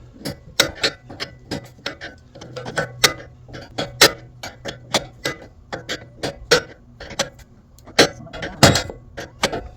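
Irregular sharp metallic clicks, a few a second, from a sawmill bunk's levelling adjuster being worked down.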